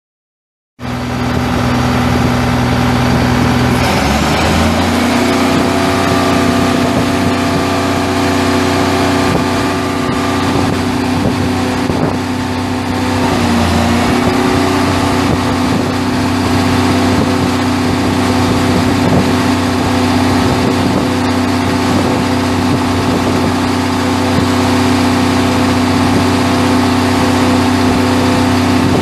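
International DT466 7.6-litre inline-six turbo diesel engine running at idle, steady, with brief shifts in engine speed about four seconds in and again around thirteen seconds.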